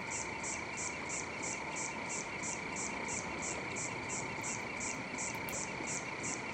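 Night chorus of calling animals: a high chirp repeating evenly about three times a second over a steady, higher-pitched chorus of other callers.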